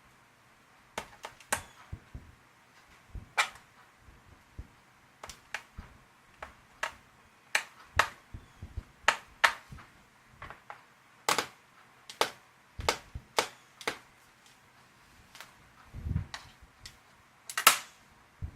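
Irregular sharp clicks and taps, some in quick pairs, from small parts being prodded and worked inside an open laptop while trying to free a component that is stuck.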